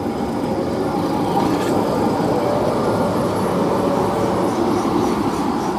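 Electric low-floor tram passing close by on street track: a steady rumble of wheels on rails with a faint high whine running through it.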